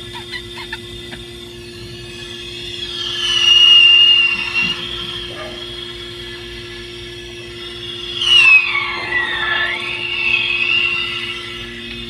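High-pitched machinery squeal in two long spells over a steady hum; in the second spell the pitch slides down and then rises again.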